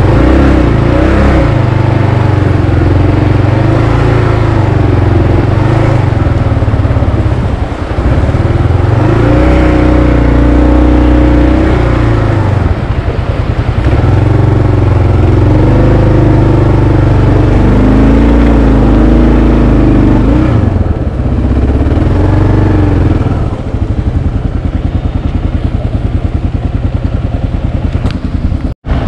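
Adventure motorcycle engine running under way, its pitch rising and falling repeatedly with the throttle. The sound drops out for an instant near the end.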